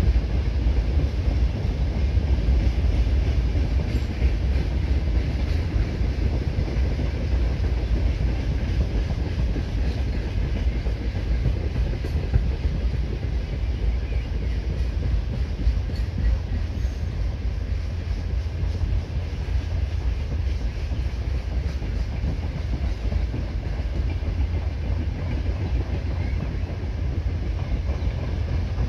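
A freight train of open coal wagons rolling past, a steady, unbroken rumble of steel wheels on rail.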